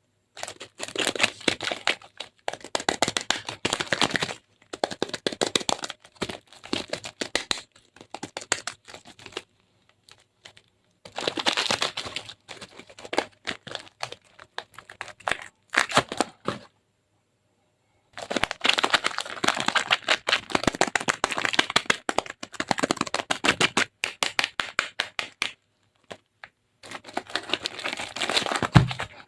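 Dried soap cracking and crumbling, a dense run of rapid small crackles that comes in bursts of a few seconds with short pauses between them.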